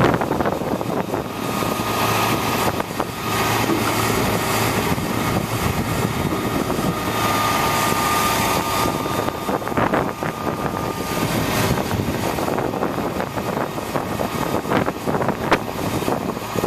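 A 1999 International digger derrick truck's engine runs steadily, driving the Altec boom's hydraulics as the boom is moved. A faint high whine comes in from about seven to eleven seconds in, and wind buffets the microphone throughout.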